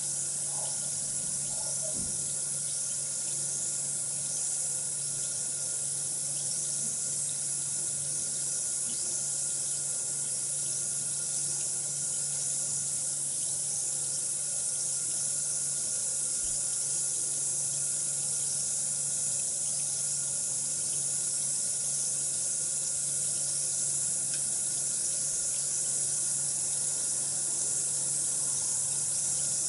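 Bath bomb fizzing steadily in water: a continuous high hiss, with a low steady hum underneath.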